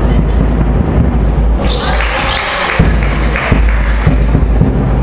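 Basketball bouncing on a hardwood gym floor, short knocks every half second to a second, over a loud, rumbling hall. About two seconds in, a burst of hissy noise lasts about a second.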